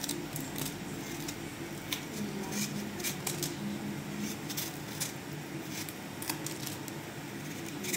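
Kitchen knife peeling the skin off a chayote squash: a run of short, irregular scraping strokes, about one or two a second, over a faint steady hum.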